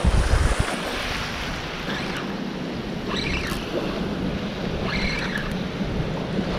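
Wind buffeting the microphone at first, then a steady wash of wind and shoreline water, with a faint low hum running underneath from about a second and a half in.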